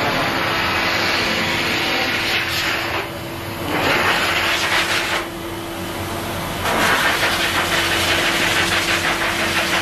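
Pet grooming dryer blowing air through its corrugated hose onto a wet kitten's fur: a steady rushing hiss over a constant motor hum. The hiss thins out twice, about three seconds in and again about five seconds in.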